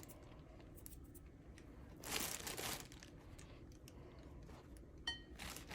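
A bag of bread rustling and crinkling as it is handled, in two short bursts about two seconds in and near the end, with faint handling ticks between them. A brief light clink comes just before the end.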